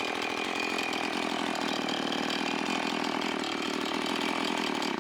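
Small gas engine running steadily with a fast rattle, cutting off suddenly at the end.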